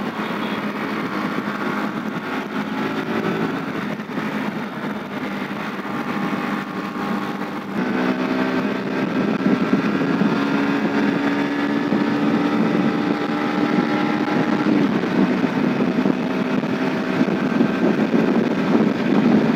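Bajaj Pulsar NS160's single-cylinder engine pulling hard in top gear with the throttle held open, heard from the rider's seat. Its note has a light bass to it and gets louder about eight seconds in as the bike gathers speed.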